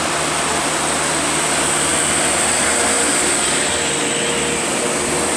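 Steady hiss of rain and wet tyres, with a heavy road vehicle's engine running as it passes on the wet road; the hiss grows a little stronger after about two seconds.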